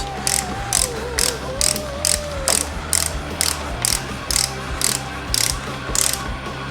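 Socket ratchet clicking in quick back-and-forth strokes, about two a second, as the small side-case cover bolts are run down before torquing to 86 inch-pounds.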